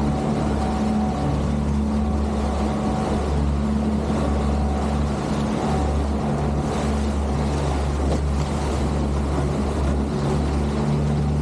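Motorboat engine running steadily at trolling speed, with a steady rush of wind and water.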